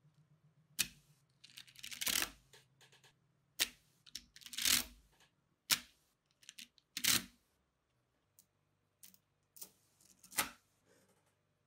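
Small neodymium magnetic balls clicking and rattling as a sheet of them is split with plastic cards and handled: irregular sharp clicks and short clatters with quiet gaps between.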